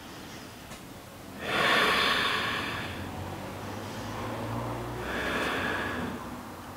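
A person's audible yoga breathing, held in a side-lying twist: a loud breath about a second and a half in, then a softer one about five seconds in.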